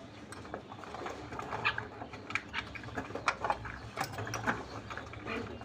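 A bird making short, irregular clicks and brief chirps.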